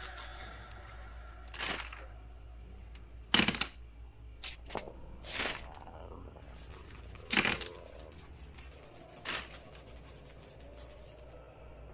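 Irregular sharp cracks and clicks, about seven of them spaced unevenly, the loudest about three and a half seconds in, over a low steady hum.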